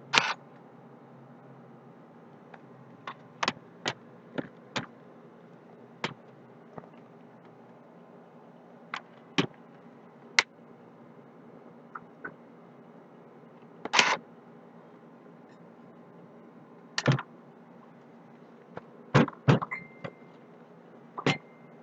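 Scattered sharp clicks, taps and knocks of a laptop's plastic case and small tools being handled on a work mat, with a few louder knocks near the middle and end and a brief high whine near the end.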